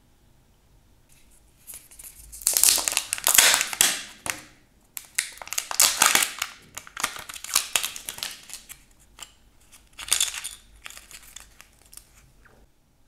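Crinkling of a folded paper insert and the plastic toy capsule of a Kinder Joy egg as it is pulled open and the small plastic Smurf parts are tipped out, in three spells of crinkling with small plastic clicks between.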